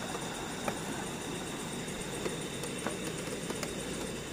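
Steady rush of fast-flowing river water beneath a bamboo footbridge, with a thin steady high tone above it and a few faint clicks scattered through.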